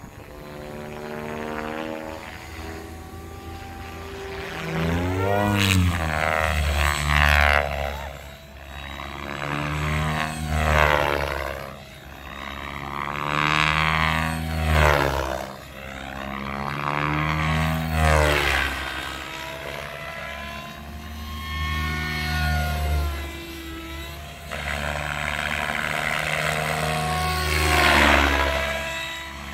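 Electric RC helicopter (Specter 700 with an Egodrift 4530 motor on 12S) flying 3D at a governed head speed of about 2200 rpm, its steady rotor and motor sound swelling and fading over and over as it manoeuvres and loads the blades. Near the start and again near the end the pitch slides up and down as it sweeps past.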